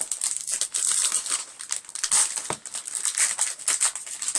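Foil wrapper of a Pokémon TCG Platinum booster pack crinkling and rustling in irregular crackles as it is torn open by hand.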